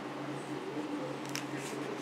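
A picture-book page being turned by hand: a short paper rustle in the second half, over a steady low hum.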